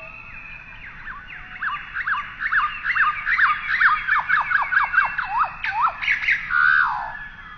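A bird calling in a rapid run of sharp, downward-sweeping whistled notes, several a second. The run ends with a few louder, longer falling calls near the end.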